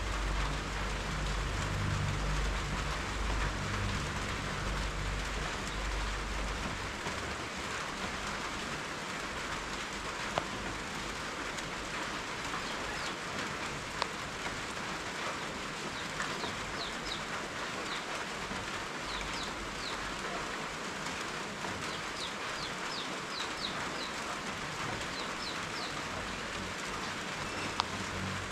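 Steady rain falling, with a low rumble underneath for the first several seconds. In the second half a small bird gives short high chirps in quick little groups, and a few louder drips tick now and then.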